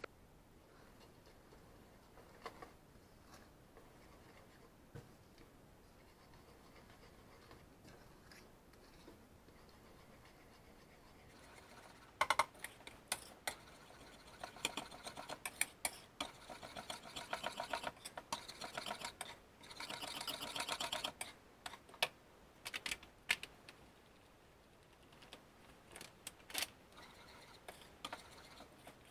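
Wire whisk beating batter in a bowl, its wires clicking and rattling rapidly against the sides. The beating starts about twelve seconds in after a quiet stretch, goes on for about twelve seconds, then trails off into a few scattered taps.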